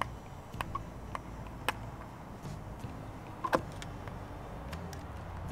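Hand screwdriver tightening the screws of a backup camera mount on a travel trailer's rear wall: a handful of scattered sharp clicks and ticks, the loudest about three and a half seconds in.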